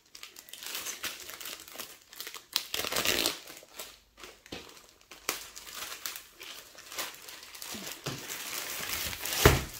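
Clear plastic sleeve crinkling as a rolled diamond painting canvas is worked out of it by hand, in irregular rustles, louder about three seconds in and with a sharp loud crinkle near the end.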